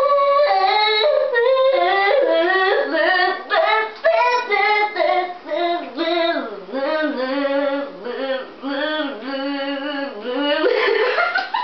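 A young woman's voice singing a slow melody unaccompanied, holding notes and sliding between them.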